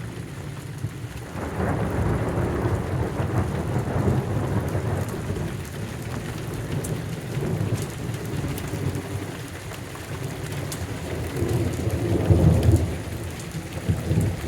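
Heavy rain with rolling thunder. One deep rumble swells about a second in and dies away over several seconds, and a second rumble builds and peaks near the end.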